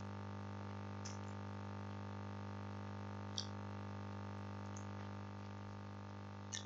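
Steady low electrical mains hum with evenly spaced overtones, with a few faint short clicks.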